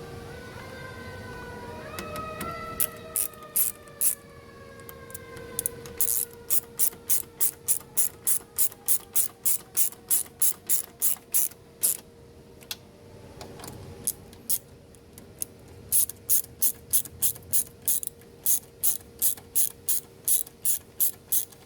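Ratchet wrench clicking in long runs, about two to three clicks a second with a short pause partway through, as bolts are driven home. A steady hum and a falling whine sound under the first few seconds.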